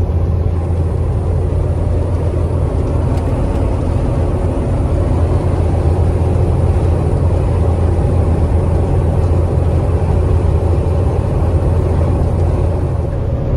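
In-cab sound of a KamAZ-4308 truck driving: a steady low drone from the diesel engine, mixed with road and wind noise. The engine is working under strain against a strong headwind.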